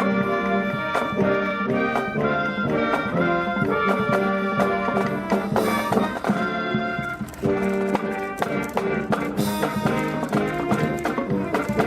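Brass band playing a lively piece: trumpets and trombones carry the melody over steady drum beats.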